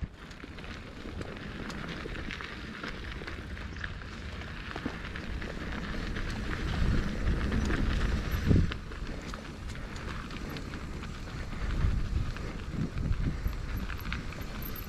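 Mountain bike rolling down a dirt trail: tyres on loose dirt and the bike rattling over bumps, with wind buffeting the microphone, heaviest about seven to eight seconds in and again around twelve seconds.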